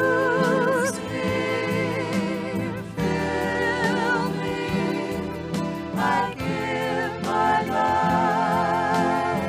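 Gospel-style worship song: voices singing held notes with wide vibrato over instrumental accompaniment with a steady pulse.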